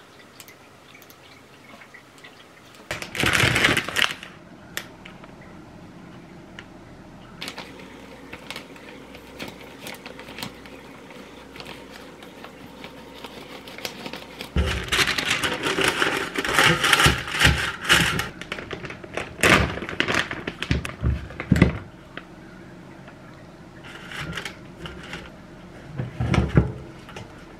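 Kitchen handling sounds: a plastic food packet cut open with scissors and rustled, then items set into an air fryer basket lined with paper, with a few light knocks. A short loud rustle comes about three seconds in.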